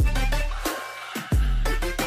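Background electronic music with a steady beat: a deep bass drum whose pitch drops, once at the start and again about a second and a third later, with sharp snare-like hits between.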